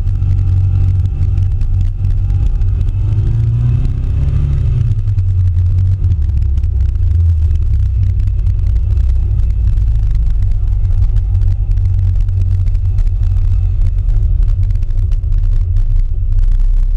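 Classic Mini's A-series four-cylinder engine running as the car rolls slowly along a dirt track, heard from a camera on its bonnet: a low steady rumble, with the engine pitch rising a couple of seconds in before it settles.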